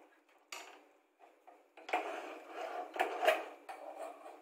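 Metal slotted spoon stirring and scraping through wet minced meat in an aluminium pressure-cooker pot. A couple of short scrapes come first, then a longer stretch of uneven stirring from about two seconds in.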